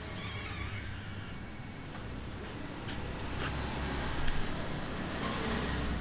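A person slurping long wheat noodles off a fork, the hissy sucking strongest right at the start, over a steady low hum.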